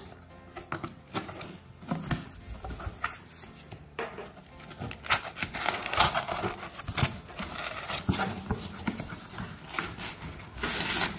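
Cardboard box flaps and an inner cardboard insert handled and pulled apart by hand: irregular scraping, rustling and knocks, busier in the second half.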